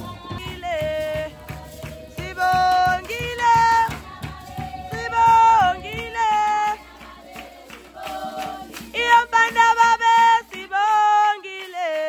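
Voices singing a chant over a steady drumbeat for the dancers; the drum fades partway through and drops out near the end, leaving the singing.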